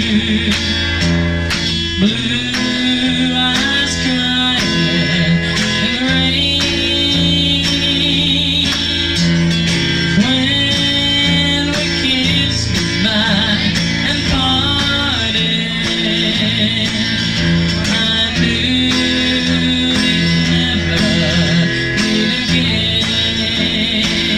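A band playing a slow country song, with guitar over a steady drum beat.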